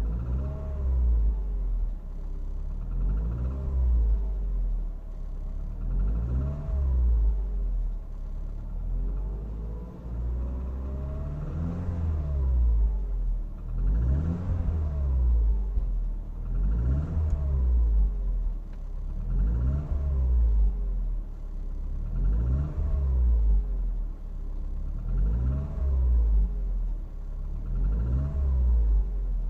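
Mercedes-Benz M111 four-cylinder petrol engine revved in short throttle blips, about one every three seconds, each rising and falling in pitch, to bring out a knock (стук) in the engine.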